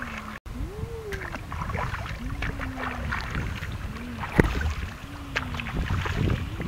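Water splashing and sloshing as hands grope through a shallow pond, in irregular splashes with one sharper splash about four seconds in. Over it, a low call that rises and falls repeats about once a second.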